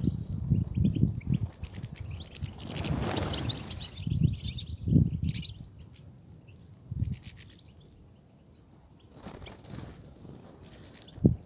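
European goldfinches giving short high twittering calls amid rustling and fluttering, busiest in the first five or six seconds and then fainter, with a single thump near the end.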